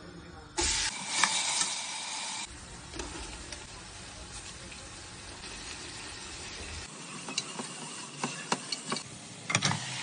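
Food sizzling in a hot pan while being stirred, with a few sharp clicks of a utensil against the pan near the end.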